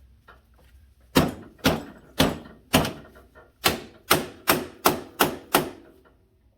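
About ten sharp hammer blows on metal, forcing a tight suspension part of an ATV into place: four strikes about half a second apart, then six quicker ones, stopping about a second before the end.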